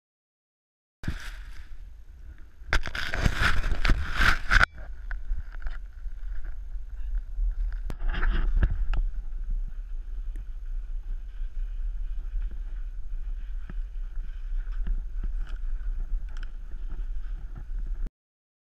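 Wind buffeting a body-worn action camera's microphone, a heavy low rumble with louder gusts about three to four and a half seconds in and again around eight seconds. It starts about a second in and cuts off abruptly near the end.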